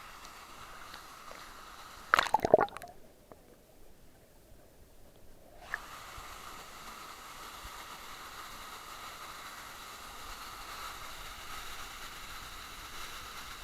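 Water splashing loudly about two seconds in. The sound then goes muffled for about three seconds before a steady hiss of moving water returns.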